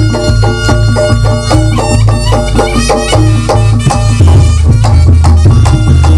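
Live Reog gamelan ensemble playing loudly: a fast, even stream of struck pitched percussion over drums and a steady low bass pattern that shifts about four seconds in, with a wavering high melody line on top.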